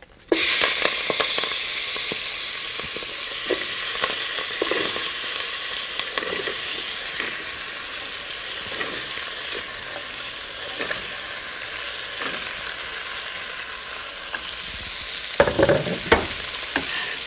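Chopped vegetables dropped into hot ghee in a cooking pot: a loud sizzle that starts suddenly and slowly dies down as they fry. Scattered knocks of a wooden spoon and cutting board against the pot, with a few louder ones near the end.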